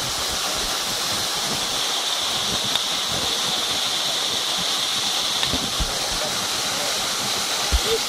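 Small waterfall pouring down a rock face into a pool: a steady rush of falling water, with a couple of low thumps near the end.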